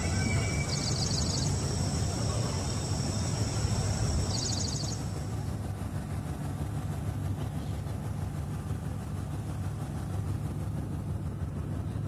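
A boat's engine giving a steady low rumble, with water noise around it. Two short, high, rapid trills cut in about a second and about four and a half seconds in.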